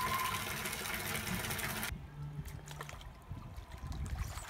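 Water pouring steadily from a hose; it cuts off abruptly about two seconds in, leaving fainter splashing and sloshing of water as a tiger cub swims in a pool.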